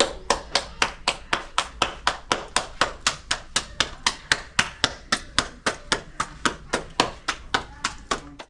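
Bare hands slapping a ball of roti dough back and forth between the palms to flatten it into a tandoor roti. The slaps are sharp and steady, about four a second.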